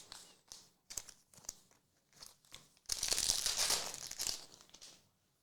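A few light clicks and taps of cards being handled, then about two seconds of crinkling and tearing as a trading card pack's foil wrapper is ripped open.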